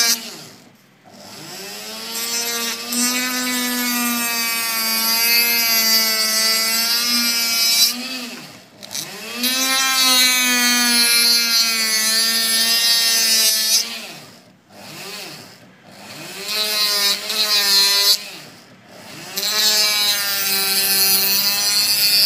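A small motor running at high speed with a steady whine, cut back several times and each time spinning back up, its pitch rising and then holding steady.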